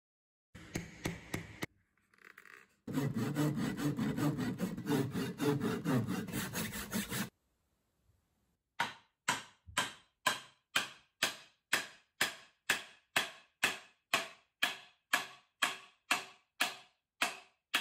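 A hand saw cutting the kerf into an ash axe handle: a few strokes, a short pause, then about four seconds of quick, steady sawing. Then hammer blows on the end of the handle, about two a second, driving on the felling axe head to hang it; the blows take a slightly higher pitch as the head nears fully seated.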